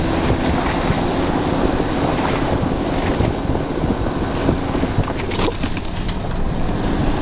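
Off-road vehicle's engine running steadily under load while driving over a rough snowy forest track, heard from inside the cab, with scattered knocks and rattles from the body over the bumps.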